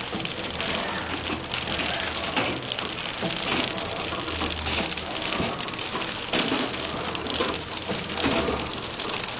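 Horizontal flow-wrap packing machine running, wrapping and sealing plates in plastic film: a dense, steady clatter of rapid clicks and rattles over a low motor hum.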